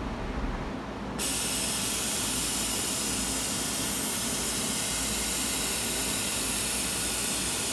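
A steady hiss of air that starts abruptly about a second in and then holds evenly, from a MultiCam 3000 Series CNC router as it initializes its automatic tool-changer spindle and homes its Z axis.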